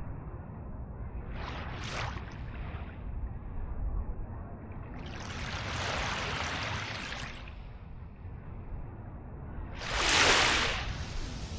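Small ocean waves washing in, three soft hissing splashes over a steady low rumble, the loudest and shortest one near the end.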